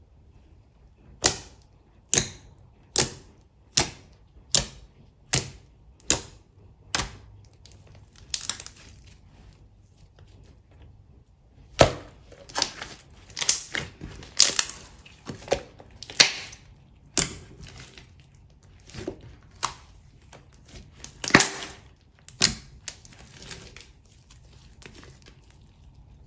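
Slime being pressed and worked by hand, giving off sharp, crackling pops: about one a second at first, then after a short pause a faster, less regular run of pops.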